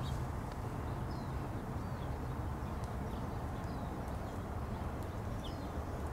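Outdoor ambience: a steady low rumble with a few faint, brief bird chirps scattered through.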